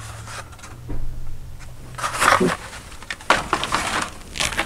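Plastic blister packs and cardboard card backs of carded Hot Wheels cars rustling and clacking as they are handled, in several short crackly bursts.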